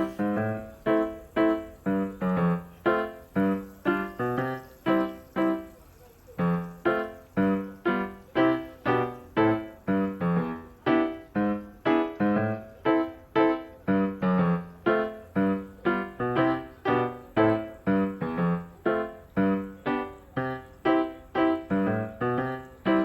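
Background music: a light keyboard tune of short, quickly fading notes, about two a second, with a brief break about six seconds in.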